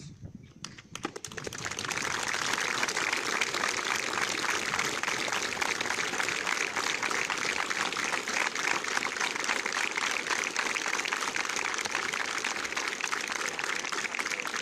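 Crowd applauding, many hands clapping; it swells over the first two seconds and then holds steady.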